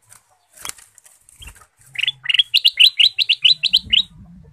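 A caged ruby-throated bulbul (kutilang emas) flutters its wings with a sharp flap. About two seconds in, it gives a fast run of about a dozen bright chattering notes, roughly six a second, rising at the start, that lasts about two seconds.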